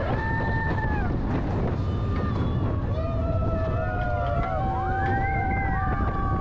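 Slinky Dog Dash roller coaster ride: a steady low rumble with wind buffeting the microphone. Over it, several long held tones slide in pitch, a couple near the start and more overlapping from about three seconds in.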